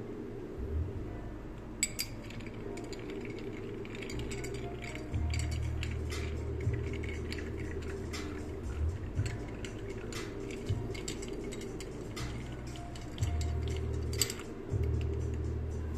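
Long bar spoon stirring ice cubes in a rocks glass: irregular light clinks and knocks of ice and metal against the glass.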